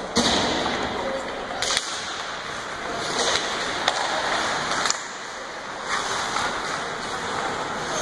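Ice hockey play on a rink: skate blades scraping the ice in repeated hissing bursts, with a few sharp clacks of sticks and puck.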